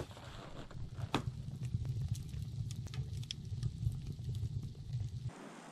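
Split wood burning in a stove firebox, crackling and popping irregularly over a steady low rumble. The rumble cuts off abruptly near the end, leaving a faint hiss.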